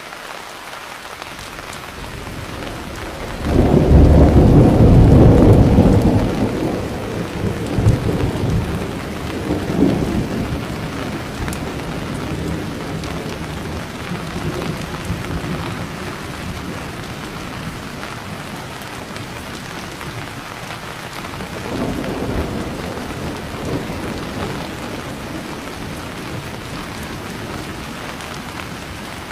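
Steady rain falling during a thunderstorm. Thunder rolls in loudly about three and a half seconds in and rumbles on for several seconds, with a second, softer roll of thunder past the middle.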